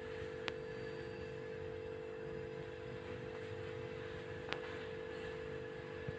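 A steady hum at a constant pitch, with two sharp clicks about four seconds apart.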